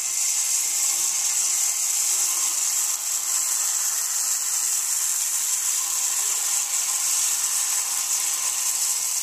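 Jalebi batter frying in hot oil in a deep pan: a steady, high hissing sizzle as fresh swirls of batter are piped in.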